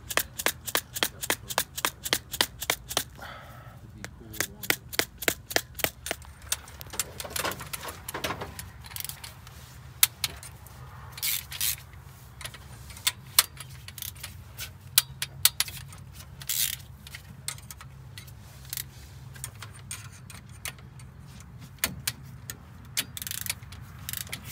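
Socket ratchet clicking in quick, even runs of about four to five clicks a second, then scattered single clicks and taps, as bolts are worked loose.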